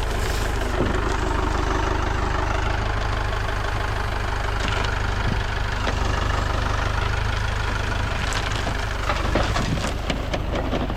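Engine of a fork-equipped loading machine running steadily, with a few short knocks or clanks in the last few seconds.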